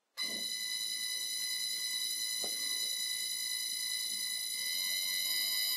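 Secondhand three-phase electric motor run from an old variable frequency drive, giving a steady, high-pitched whine from the drive's switching frequency, over a faint motor hum. It starts abruptly just after the beginning and slowly grows a little louder.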